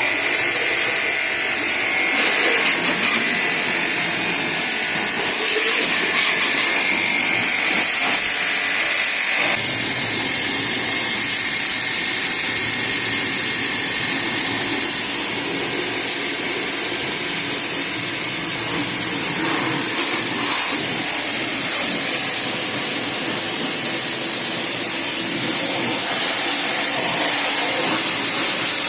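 KisanKraft high-pressure washer running and spraying: a loud, steady hiss of the water jet. A high tone in the hiss drops away about nine seconds in.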